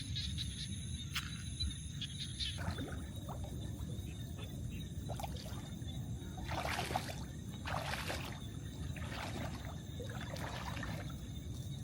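Water splashing and trickling as a gill net is hauled in by hand, with several louder splashes a little past the middle, over a steady low rumble.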